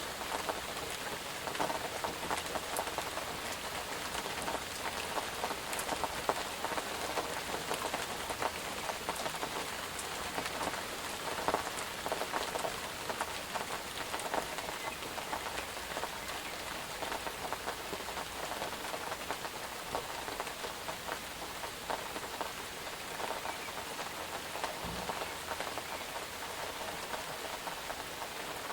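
Steady rain falling, with the dense patter of individual drops hitting a surface.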